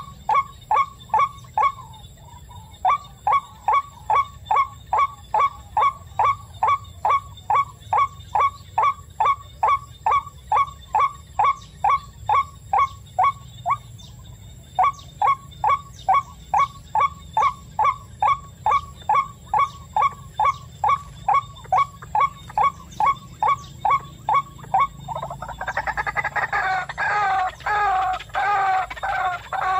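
White-breasted waterhen call: one short note repeated steadily about two and a half times a second, breaking off briefly near the middle. Near the end it changes to a denser, rougher run of calls.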